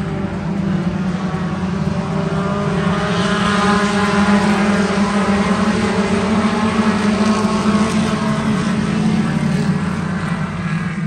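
A dirt modified race car's small-block V8 engine running at a steady pitch. It grows louder about three seconds in, then eases slightly near the end.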